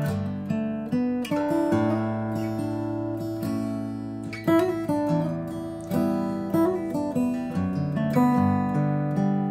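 Steel-string acoustic guitar played fingerstyle: plucked melody notes over low bass notes that ring on.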